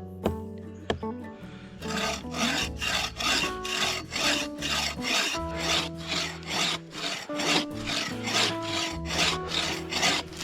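Hand saw cutting through a dead log in even back-and-forth strokes, about two to three strokes a second, starting about two seconds in after a few light knocks on the wood.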